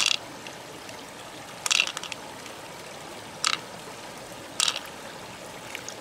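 Four short handling sounds, a second or more apart, as fingers press and work through the flesh of an opened pearl-filled freshwater mussel, over a steady trickle of water.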